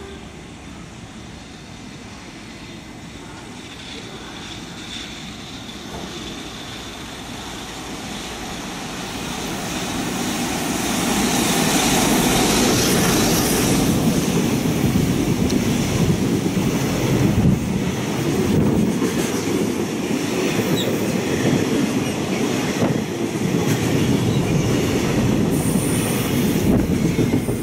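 Container freight train hauled by an EF65 electric locomotive passing close by. It grows louder over the first eleven seconds or so, then the wagons roll past with a steady noise of wheels on rail.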